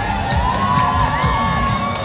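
A crowd cheering and whooping, with several long, high calls overlapping, over music.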